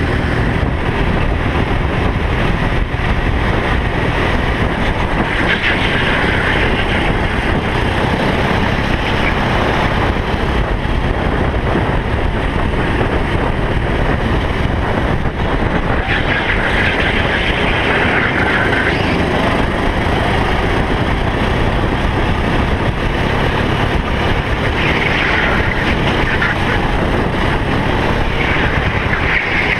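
Racing kart engine running hard at race speed, heard from onboard with the rush of air around the kart. A brighter, higher note comes in several times for a couple of seconds each.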